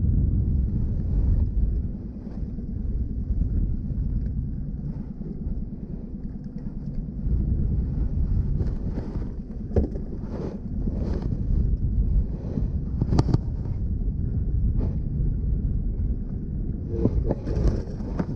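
A boat's motor running steadily at trolling speed, with wind buffeting the microphone. A few short knocks and clicks come partway through.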